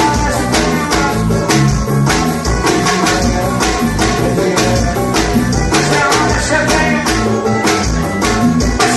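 Loud music with singing over a steady beat, played through a sound system.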